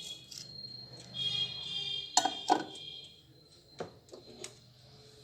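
Clinks and sharp clicks of a bowl of peanuts being handled and put back into a microwave oven. A thin high tone sounds near the start and again for about a second, and several separate clicks follow in the second half.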